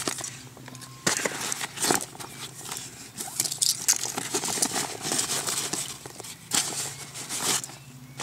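Hands rummaging in a Maxpedition Jumbo VersaPack fabric shoulder bag: the fabric rustles and small contents click and knock, in fits and starts.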